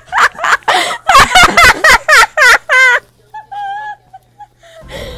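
A girl cackling in quick, loud, high-pitched bursts, ending in a wavering squeal about three seconds in; a fainter wavering note follows, and music starts near the end.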